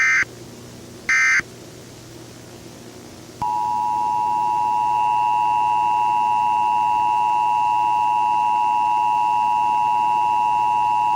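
Emergency Alert System data bursts: two short buzzy digital chirps about a second apart, the end of a three-burst end-of-message sequence. About three seconds later the EAS two-tone attention signal comes on and holds steady and loud.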